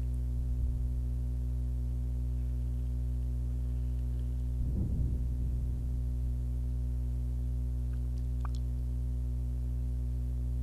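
Steady electrical mains hum with a stack of overtones, and a brief soft rustle about five seconds in.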